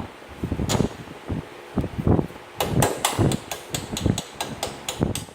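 Hand tools knocking and clinking against metal ATV suspension parts: dull knocks at first, then a quick run of sharp metallic clicks, about three or four a second, through the second half.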